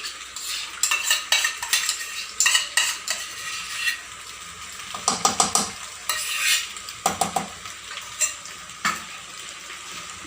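A spoon stirring and scraping pasta and vegetables in a hot pan, with irregular clinks and scrapes of the spoon against the metal and a sizzle of frying underneath.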